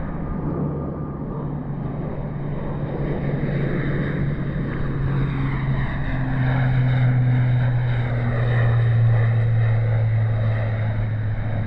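Airplane passing low overhead: a steady engine drone that grows louder to a peak about nine seconds in while its pitch slowly falls.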